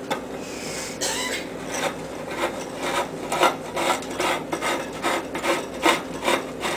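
Scratchy rasping strokes, about three a second from about two seconds in, as a squeezed tube of adhesive is run around the rim of a tin can lid.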